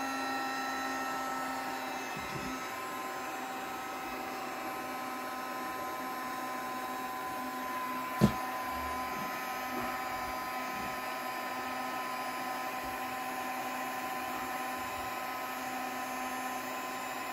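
Heat gun running steadily, a rush of air with a steady whine of several tones, warming a seized turntable center spindle. A single sharp click about eight seconds in.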